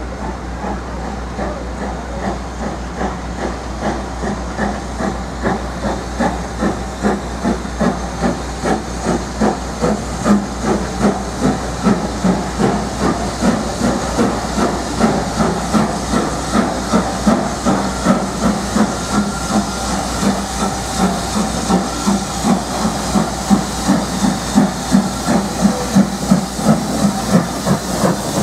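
BR Standard Class 4MT 2-6-4 tank locomotive under steam, with rhythmic exhaust chuffs over a steady steam hiss. The beats grow louder as the engine and its coaches draw nearer.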